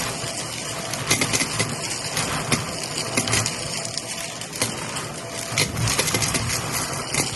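Shark vacuum cleaner running over carpet and sucking up small crunchy pellets, with a steady motor hum and frequent sharp crackles and clicks as the bits are crushed and rattle up through the nozzle.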